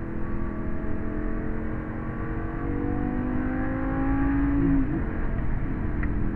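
Lamborghini engine accelerating hard, heard from inside the cabin, its note rising steadily for nearly five seconds and then dropping abruptly before it holds steady.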